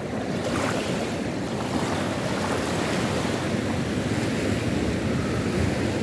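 Ocean surf breaking and seawater washing in the shallows, a steady rush, with wind on the microphone.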